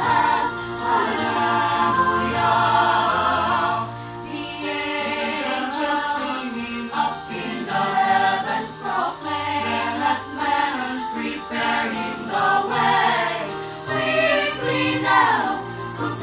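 A small choir of young voices singing a Christian song together, over electronic keyboard accompaniment with sustained low notes.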